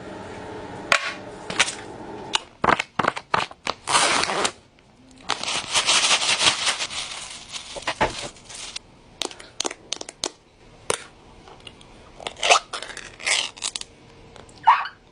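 Crinkling and rustling of plastic food packaging being handled and opened, with many sharp clicks and taps. There are two longer stretches of crinkling, about four seconds in and from about five to seven seconds in.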